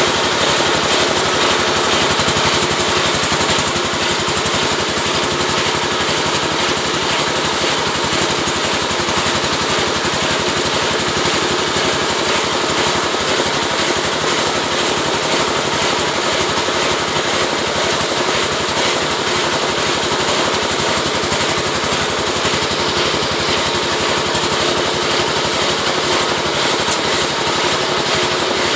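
An oil-palm leaf-rib (lidi) scraping machine running: a loud, steady mechanical buzz from a small motor with a fast rattling rhythm.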